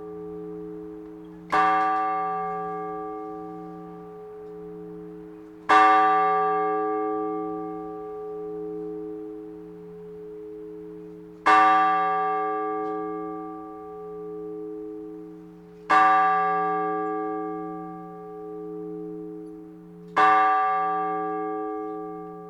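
A single large Orthodox church bell struck five times at slow, measured intervals of about four to six seconds, each strike ringing on in a long humming decay: blagovest, the one-bell ringing that announces the start of a service.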